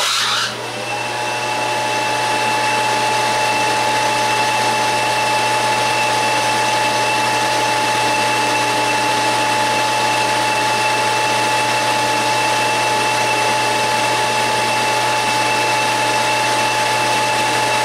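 Metal lathe with leather link belts switched on, spinning up within about two seconds, then running steadily at about 1500 rpm with a steady whine over the machine noise.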